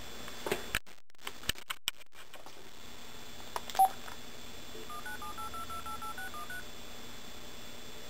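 Telephone keypad tones as a number is dialled: about a dozen short two-note beeps in quick succession, after a few clicks and one short beep.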